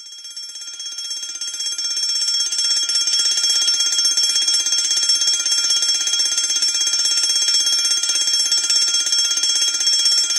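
Alarm clock ringing: a fast, continuous bell-like ring at a few fixed high pitches. It swells up over the first couple of seconds and stops abruptly.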